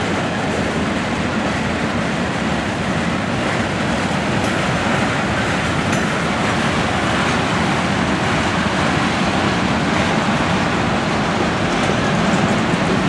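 Freight cars of a passing train rolling by: a steady rumble and rattle of steel wheels on the rails.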